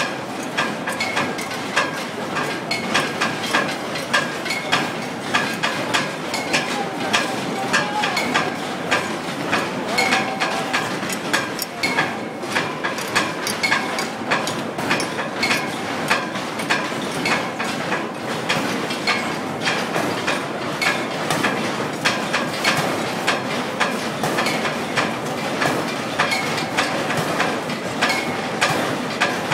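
Metal being struck over and over in a steady rhythm, roughly two ringing clangs a second, over a constant background din.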